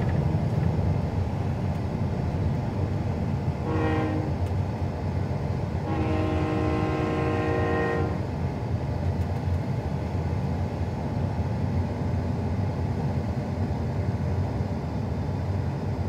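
A freight train's locomotive horn sounds twice, a short blast about four seconds in and a longer one of about two seconds soon after, over a steady low rumble inside a moving vehicle's cab.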